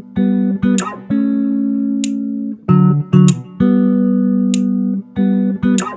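Background music: held guitar-like chords with a sharp hit about every second and a quarter.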